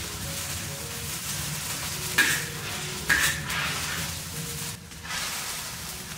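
Roselle liquid boiling in a wok, a steady bubbling hiss, with two sharp knocks about two and three seconds in.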